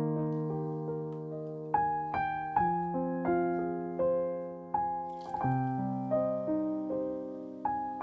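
Slow piano music, single notes and chords struck about once a second and left to ring out.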